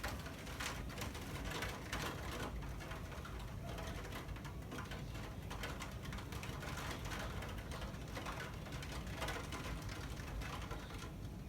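Heavy thunderstorm rain: a steady hiss with rapid, irregular taps of drops striking a surface close by.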